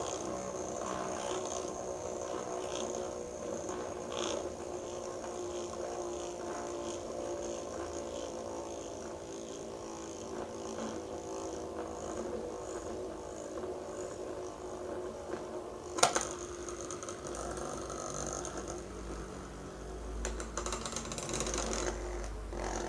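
Merit toy gyroscope's metal rotor spinning, a steady whirring hum with a light rattling buzz from its frame. About two-thirds of the way through there is one sharp clack, and near the end a louder rattling as the gyroscope spins tilted on its frame against the mat.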